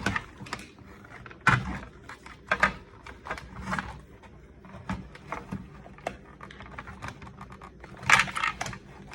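Small plastic toy parts being handled: irregular clicks, taps and knocks as pieces are pushed and pried at, with a busier patch of clattering near the end.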